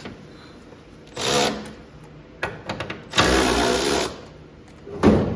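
Cordless power tool run in two short buzzing bursts on the door hinge bolts while the sagging door is being adjusted, with a few brief blips between them and a knock near the end.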